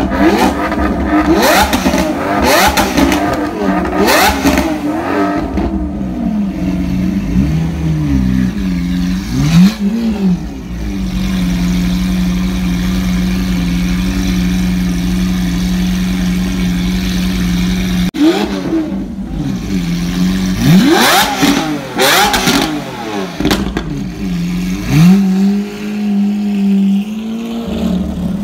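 Lamborghini Aventador LP700-4's 6.5-litre V12 through an Armytrix header-back valvetronic exhaust, revved in a series of quick throttle blips while stationary, dropping back between them to a steady idle. A second run of sharp revs comes about twenty seconds in, then it settles to idle again.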